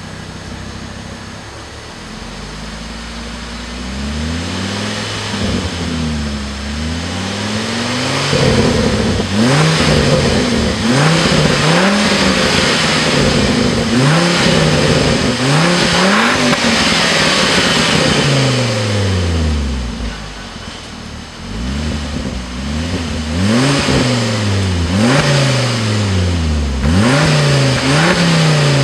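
Tuned 2012 Volvo C30 R-Design's turbocharged five-cylinder, breathing through an ELEVATE 3-inch downpipe and sport exhaust, heard at the tailpipes as it is revved at a standstill. It idles briefly, then gives a long string of quick rev blips that rise and fall sharply, settling back toward idle once about two-thirds through before revving again.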